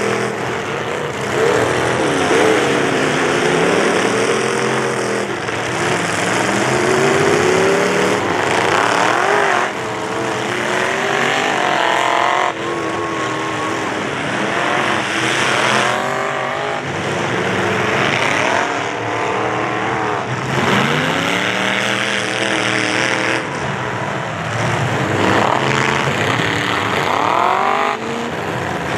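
Several demolition derby trucks' engines revving hard, their pitch climbing and falling again and again as they push and ram. The sound jumps abruptly several times.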